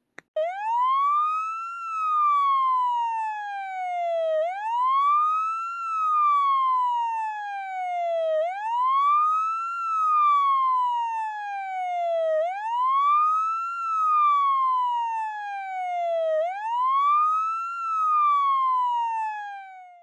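Fire engine siren wailing. The pitch climbs quickly, then slides slowly back down, once about every four seconds, five times over.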